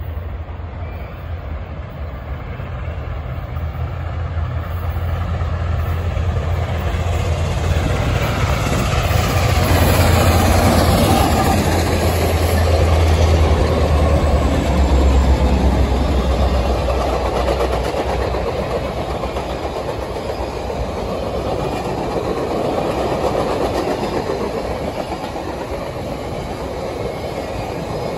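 A Canadian Pacific passenger special passing close by. The maroon-and-grey diesel F-units give a low, steady drone that builds to its loudest about halfway through. The drone fades out after that, leaving the rolling rumble of the passenger cars' wheels on the rails.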